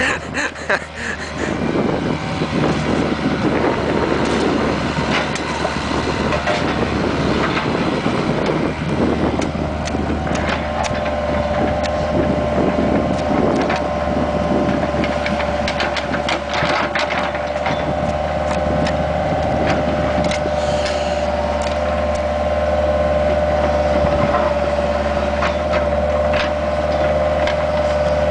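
Bobcat 430 ZHS mini excavator's diesel engine running steadily under work, with scattered clanks and scrapes as the machine tears up and moves asphalt. From about ten seconds in, a steady whine joins the engine.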